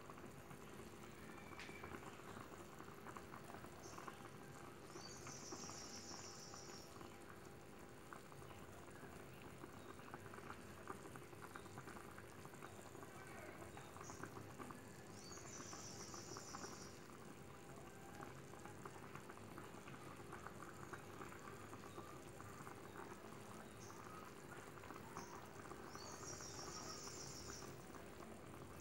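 Thick coconut-milk rendang gravy simmering in a blackened two-handled wok, bubbling and popping softly. A short high trill sounds three times, about ten seconds apart.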